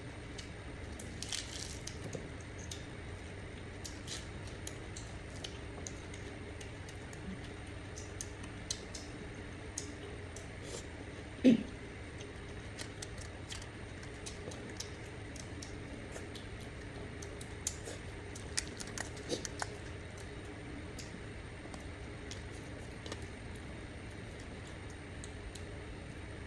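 Eating and food-handling sounds: scattered small clicks, taps and soft squishy noises over a steady low background hum, with one louder knock near the middle.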